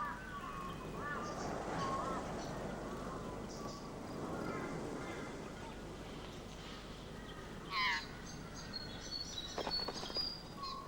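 Birds calling in the bush: repeated short rising-and-falling notes over a background hiss, a louder call about eight seconds in, then high quick chirps near the end.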